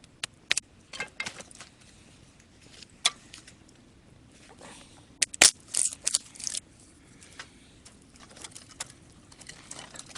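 Wood campfire crackling: irregular sharp pops and snaps, with a louder spell of crackling about five and a half seconds in.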